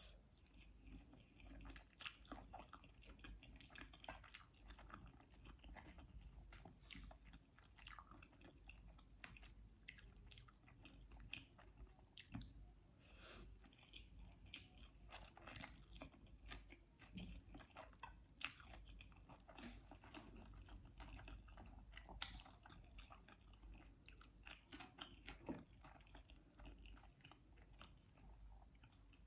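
Close-miked, quiet eating sounds: a person chewing and biting food, with many small sharp mouth clicks and soft wet smacks coming irregularly throughout.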